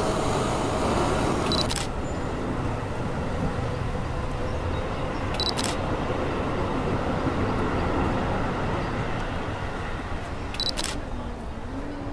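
Steady city-street ambience with traffic and faint voices, broken by three sharp camera-shutter clicks a few seconds apart.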